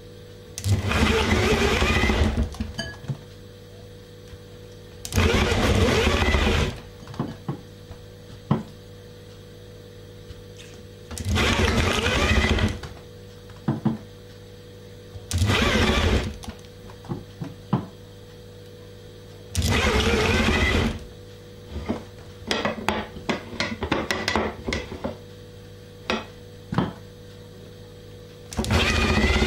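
Bort corded electric drill turning a hand meat grinder, run in six short bursts of one to two seconds while meat is fed through. Small clicks and knocks fill the gaps, most thickly in the long pause after the fifth burst.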